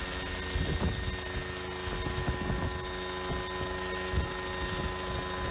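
Homemade coaxial helicopter hovering just off the ground: its engine and rotors run steadily with a high whine, under irregular low buffeting.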